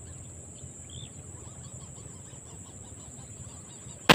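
Steady high insect chirring over low outdoor noise, then a single sharp airgun shot near the end, fired down into the water at a fish.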